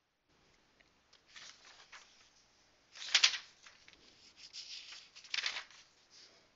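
A series of dry rustles and scrapes, like something being handled near the microphone, loudest about three seconds in and again about five and a half seconds in.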